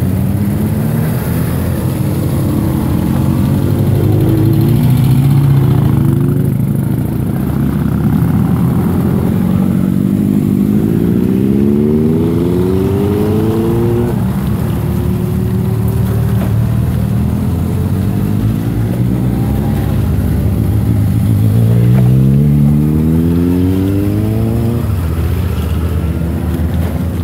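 A procession of touring motorcycles riding past one after another, their engines rising in pitch as bikes accelerate away in turn, with the clearest run-ups about four, ten and twenty-two seconds in.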